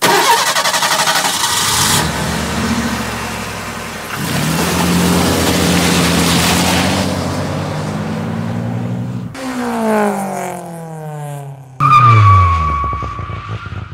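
Vehicle engine heard from inside a moving pickup's cab, revving up and easing off with abrupt jumps between takes. Near the end comes a louder burst of engine sound with a high whine, its pitch falling.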